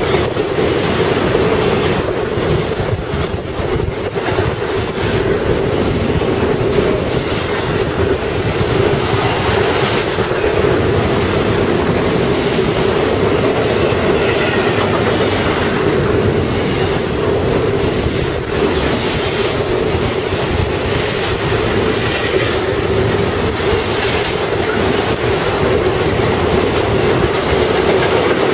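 Union Pacific intermodal freight train of truck trailers on flatcars passing at speed: a steady rumble of wheels on rail, clattering over the rail joints, with a constant humming tone running through it.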